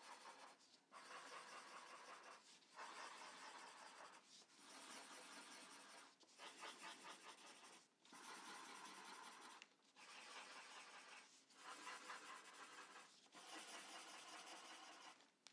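Felt-tip marker scribbling small circles on paper, one polka dot after another. It is a faint, scratchy rubbing in runs of about a second and a half each, about nine times, with brief pauses between dots.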